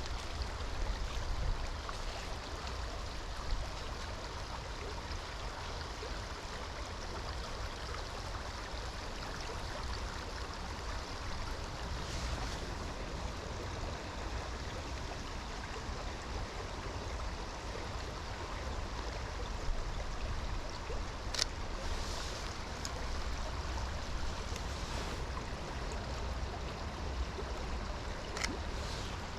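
Steady rush of a flowing river, with a low wind rumble on the microphone. Two sharp ticks come in the last third.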